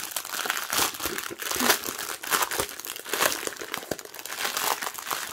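Clear plastic bag crinkling as it is handled and turned over in the hands, a dense run of irregular crackles. The bag holds a bundle of small bags of diamond-painting drills.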